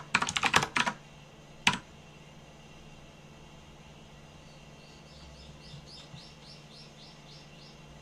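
Computer keyboard keystrokes: a quick run of about half a dozen keys in the first second, then one more key. A few seconds later a bird faintly chirps a rapid series of about ten short high chirps.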